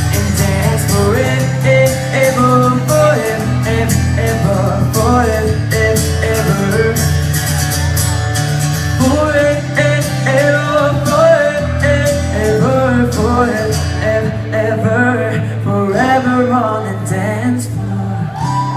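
Pop song playing loud over the venue's PA at a sound check: an instrumental stretch with a heavy bass line, a melodic line and drums, the drums dropping out about three quarters of the way through.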